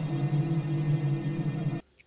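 Ambient intro music: a steady drone of several held tones that cuts off suddenly near the end.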